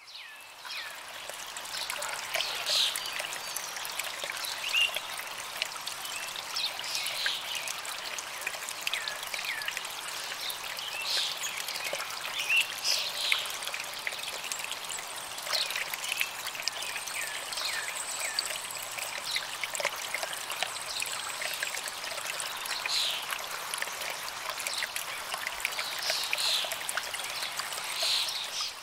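Water trickling and splashing steadily, with many small bright plinks of drops throughout.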